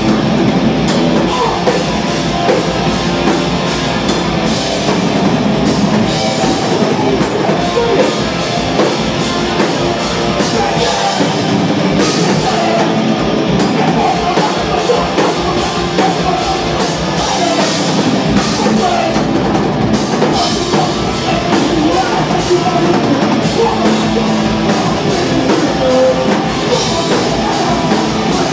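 A hardcore punk band playing loud and fast, live: distorted electric guitars, bass and a drum kit with crashing cymbals, without a break.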